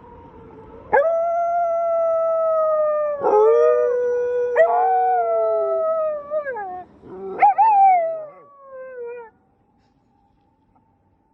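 Two dogs howling together in response to a police car siren. One starts a long howl about a second in, and a second dog joins at a lower pitch a couple of seconds later. The howls end in a few shorter, wavering howls.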